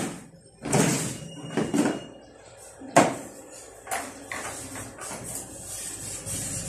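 A run of sharp knocks and clatters as things are handled and set down on a hard floor, the loudest about three seconds in; from about five seconds a steady rubbing or scraping sound begins.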